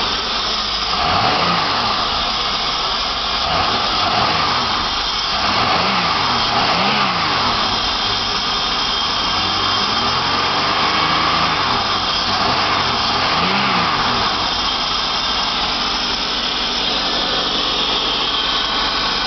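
1997 VS Holden Commodore's 3.8-litre Ecotec V6 revved while parked, rising and falling about five times and settling back toward idle between blips.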